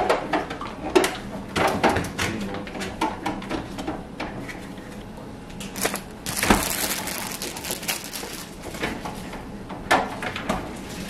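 Household handling clatter: a string of short knocks and clicks, like dishes and utensils being set down and moved. About six and a half seconds in comes a louder knock, followed by a second or so of hissing rustle.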